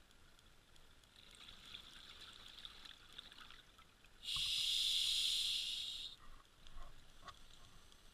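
Scuba diver breathing through a regulator underwater: a soft hissing inhale, then a louder rush of exhaled bubbles lasting about two seconds, followed by a few short bubbly clicks.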